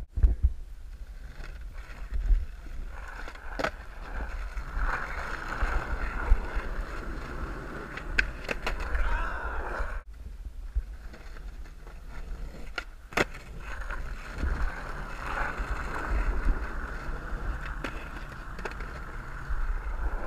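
Skateboard wheels rolling over asphalt, a steady gritty rumble, with several sharp clacks of the board hitting the ground.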